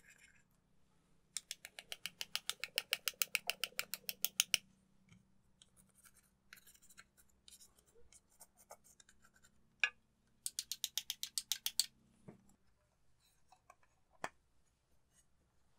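A wooden stick scraping pressed eyeshadow out of a plastic palette's pans in fast back-and-forth strokes, about ten a second, in two bursts. Between the bursts there are light single clicks and taps.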